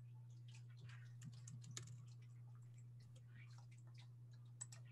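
Faint, irregular clicking of a computer keyboard and mouse over a steady low hum, near silence.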